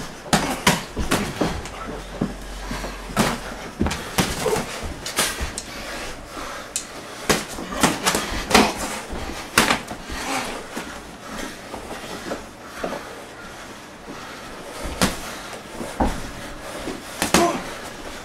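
Boxing gloves landing and feet stomping on the floor during sparring: irregular thuds and slaps, some in quick clusters, in a small room.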